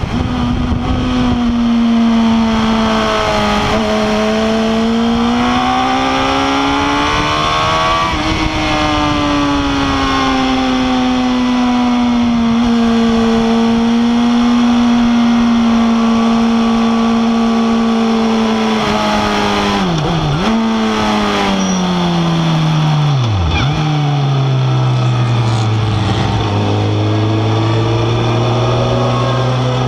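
Suzuki GSX-R1000 K8's inline-four engine heard onboard at speed, its pitch rising and falling with the throttle, over wind noise on the microphone. About 20 seconds in and again about 23 seconds in the revs drop sharply, then the engine runs at low, steady revs as the bike rolls slowly.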